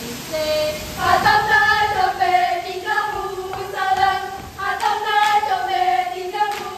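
A group of teenage girls singing a Ratoh Jaroe dance song in unison, starting about a second in, with a few sharp hand slaps in the second half as they move.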